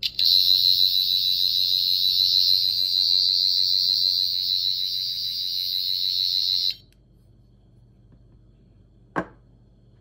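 Sonic screwdriver prop's electronic sound effect from its small built-in speaker: a loud, high-pitched pulsing whine that starts with a button click and cuts off suddenly after about six and a half seconds. About two and a half seconds later comes a single knock as the prop is set down on the wooden table.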